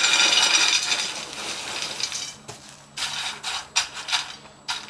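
Goldfish snack crackers pouring from their carton onto a plate: a dense rattle that starts suddenly and thins out over about a second and a half. A few scattered clicks and rustles follow as a hand spreads the crackers.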